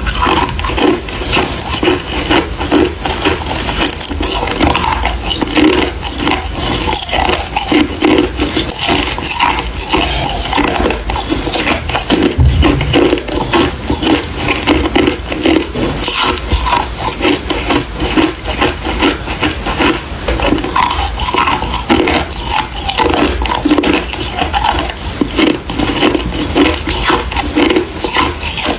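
Ice being chewed and crunched close to the microphone, a steady run of loud, rapid crunches.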